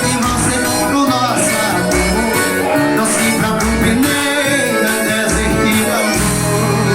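Forró music with singing over a steady beat, about one low beat a second; near the end the music settles on a held low chord.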